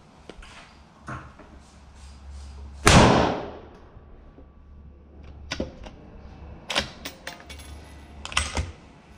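A single rifle shot about three seconds in, with a short echo. It is followed by several sharp metallic clicks and clacks from an AR-15-style rifle being handled at the action.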